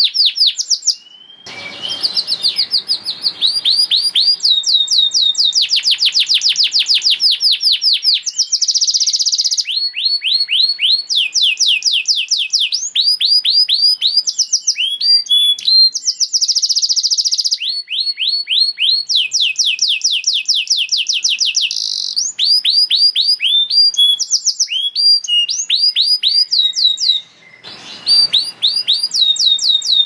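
Domestic canary singing near-continuously: phrase after phrase of rapid trills, each a fast run of the same sweeping note repeated, some as quick buzzy rolls, with short breaks about a second in and near the end.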